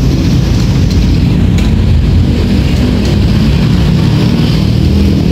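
459 cc petrol engine of an APW 4400 high-pressure washer running steadily and loud.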